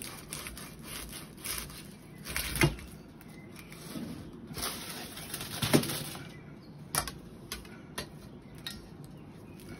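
Table knife cutting and cracking the baked crust of a shah pilaf: irregular crunches and clicks of the blade, some against the metal tray, the loudest a little under 3 s and just under 6 s in.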